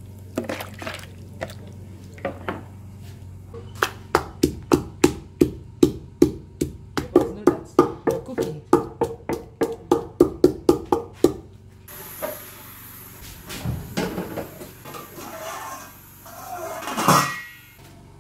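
A wooden pestle pounding in a wooden mortar: a steady run of dull thuds, about three a second, lasting around seven seconds. Before it come a few knocks and water sounds from tomatoes being rinsed in a plastic bowl. After it a steady hiss sets in, with a louder clatter near the end.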